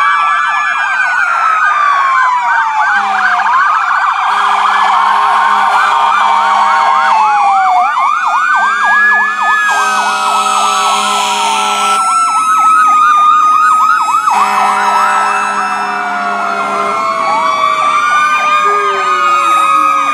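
Several fire truck and ambulance sirens sounding together as the vehicles pass: slow rising-and-falling wails overlap fast yelps. Steady low horn blasts come on and off several times.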